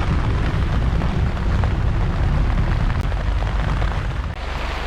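Heavy low rumbling from a 4x4 vehicle driving a rough forest track, steady and loud, settling into a slightly quieter, even rumble about four and a half seconds in.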